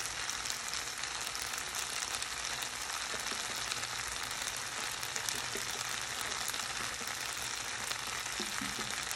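Fusilli pasta in tomato sauce sizzling steadily in a non-stick frying pan on a gas stove as coconut milk is poured in, an even frying hiss with a few faint ticks.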